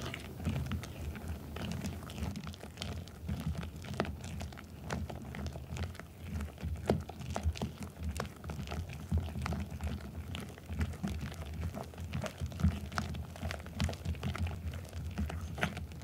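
Wire whisk beating whipped cream into mashed kabocha squash in a glass bowl. Quick, irregular strokes give sharp ticks of the wires against the glass and soft, wet squelching.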